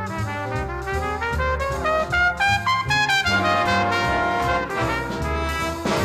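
Background music led by brass instruments, with a rising run of notes in the middle.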